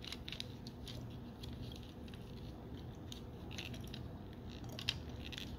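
A few faint clicks and light handling noise from a plastic Transformers action figure being worked at a double joint to flip a section over, over a low steady hum.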